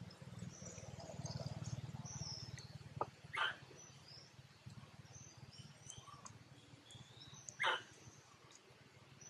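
Long-tailed macaques giving two short, sharp calls, one about three and a half seconds in and one about two seconds before the end, with faint birds chirping in the background.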